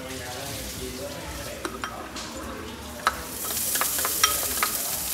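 Hot oil sizzling in a frying pan, turning loud about three seconds in, with a few sharp clicks of a utensil against the pan.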